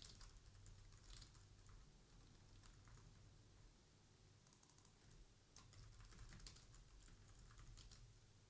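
Faint typing on a computer keyboard: scattered, irregular keystrokes over a low steady hum.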